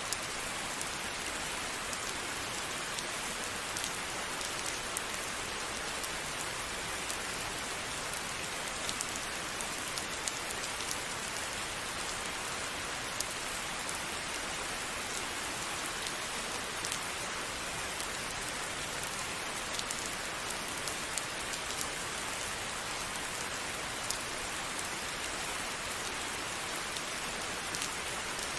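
Steady rain falling, an even hiss with individual drops ticking on a hard surface scattered through it.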